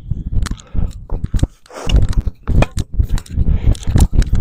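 Tennis forehand rally: sharp racket-on-ball strikes and quick footsteps on a hard court, about a dozen sharp hits in all, over a steady low rumble.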